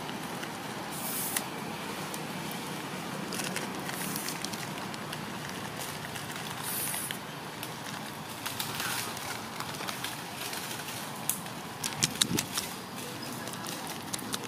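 Forest ambience with light rustling and crackling of leaves and twigs. About twelve seconds in comes a quick run of sharp twig snaps, from a macaque handling a branch in the tree.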